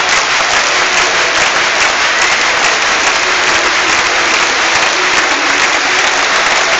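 Stadium crowd applauding: a dense, steady clapping that holds at the same level throughout.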